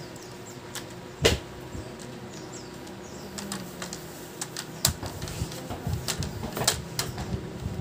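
Plastic clicks and snaps from a laptop's screen bezel being pressed onto the display lid: one sharp snap about a second in, then a run of smaller clicks in the second half.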